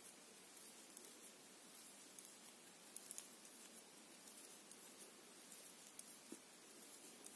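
Near silence with faint, irregular clicks of metal knitting needles as stitches are worked, over a steady low hiss.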